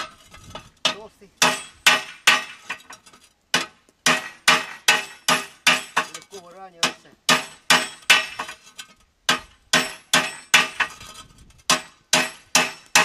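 A hammer striking a dished metal part of a concrete mixer's bearing housing on a bench vise, about two to three blows a second, each with a short metallic ring. The part is being flattened back true after bolt tightening deformed it.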